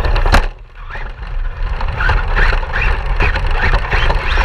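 A radio-controlled car running and scrabbling over rough ground, with a sharp knock about a third of a second in and a heavy low rumble throughout.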